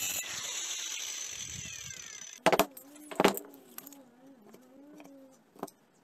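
Homemade cut-off machine, an abrasive disc driven by a washing-machine motor, grinding through metal clamped in a vise, stopping abruptly about two and a half seconds in. Then two sharp knocks, a faint wavering hum and a softer knock near the end.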